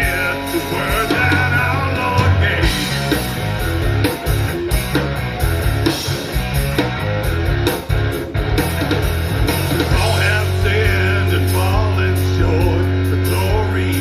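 Live Christian rock band playing: electric guitar, bass and drums, with some singing.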